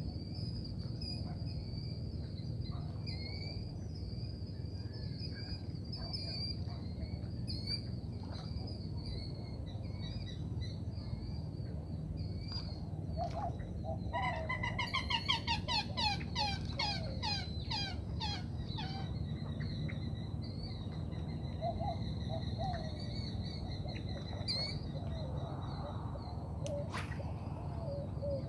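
Birds calling, with a rapid run of repeated calls lasting several seconds about halfway through and a few lower calls near the end. Underneath are a steady high whine and a low rumble.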